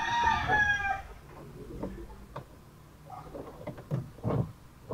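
A rooster crowing: one drawn-out call during the first second, dropping in pitch at its end. It is followed by scattered light clicks and knocks as wires and an amplifier board are handled.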